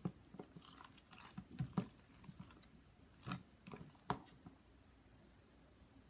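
Butter slime of glue, modeling clay and detergent being worked, giving soft, irregular sticky squelches and clicks that die away after about four seconds.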